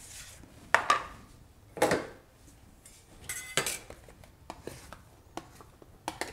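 Plastic dough-box lids and bowls being handled and set down on a stone countertop: a handful of sharp clacks and light knocks, with a short clattering rattle about three and a half seconds in.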